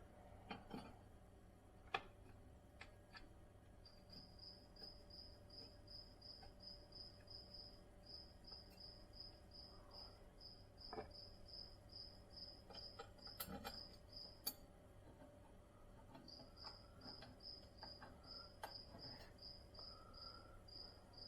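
A cricket chirping in a quick even rhythm, about four chirps a second, breaking off for a couple of seconds near the middle. Faint scattered clicks and taps, like small parts and tools being handled.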